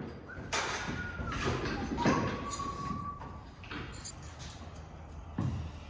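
Workshop handling noise: irregular knocks and thuds, with two short squeaky tones in the first half, over a steady low hum.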